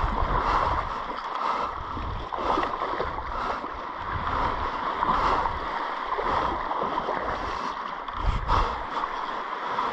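Shallow seawater sloshing and lapping around the legs of an angler wading out, with an uneven low rumble of wind on the microphone.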